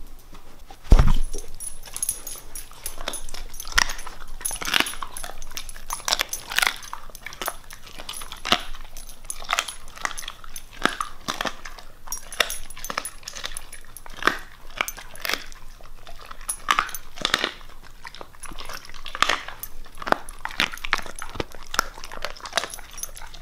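Siberian husky chewing something close to the microphone: a run of irregular crunches and mouth clicks, with a heavy thump about a second in.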